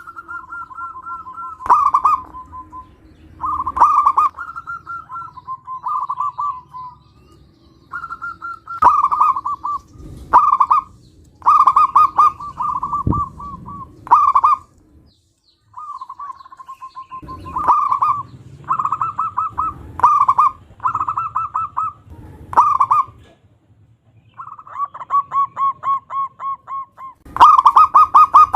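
Zebra dove (perkutut) cooing: repeated phrases of rapid, trilled coos, many ending in a sharp, louder note, with short pauses between phrases.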